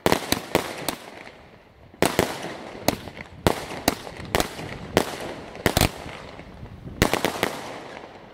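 Multi-shot firework cake firing: sharp bangs from shells bursting overhead, coming in quick clusters with pauses of about a second between them.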